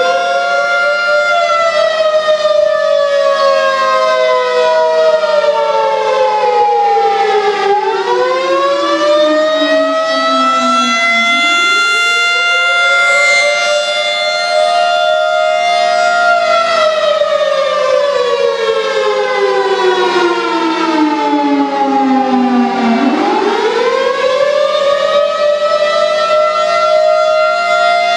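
Federal Signal 2001-130 rotating electromechanical siren sounding the Attack signal: its tone winds up over about two seconds, holds briefly, then slides slowly down for several seconds before winding up again, three rises in all.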